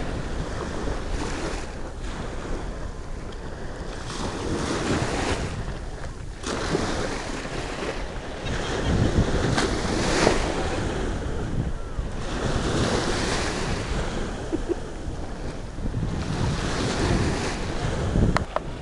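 Wind rushing over the microphone in gusts, swelling and easing every few seconds, with one sharp click near the end.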